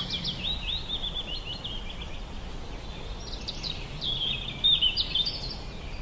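Small bird chirping in two runs of quick, high, short notes over faint outdoor background noise; the second run, about halfway through, is a little louder.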